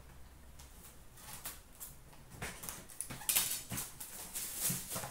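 Plastic shrink wrap crinkling and tearing as it is pulled off a sealed hockey card box. It starts about two and a half seconds in, as an irregular run of crackles.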